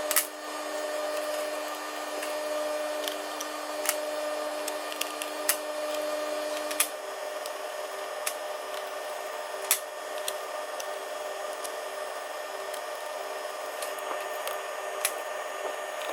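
A steady electrical whine and hiss, with a few sharp clicks now and then.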